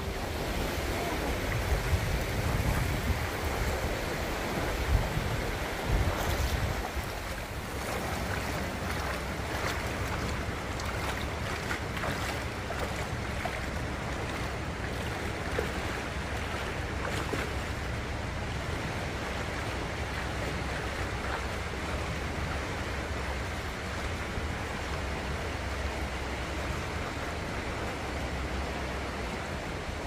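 Shallow seawater washing steadily over a flat rock shelf at low tide. Wind buffets the microphone with a low rumble and a couple of thumps during the first several seconds.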